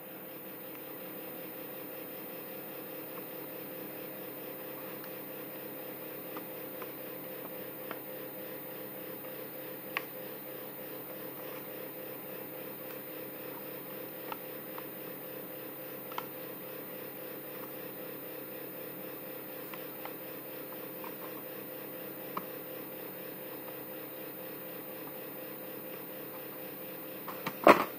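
Steady mechanical hum of a running fan-type machine, with a few faint clicks as a plastic blister pack is handled.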